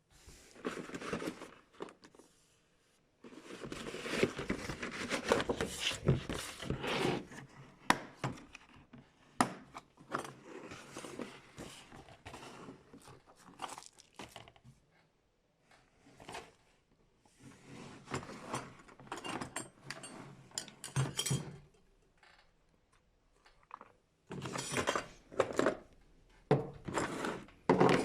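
Irregular clattering, clinking and rustling of a heat gun and its packaging being handled, in short stops and starts with brief pauses.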